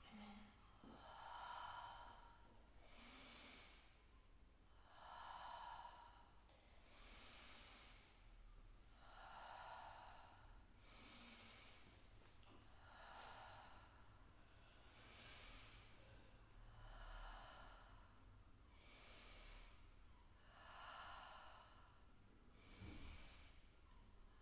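A woman's slow, deliberate breathing in a calming finger-breathing exercise: six faint, paced breaths in and out, about one full breath every four seconds, alternating a thin hissing breath with a softer, lower 'haa' breath.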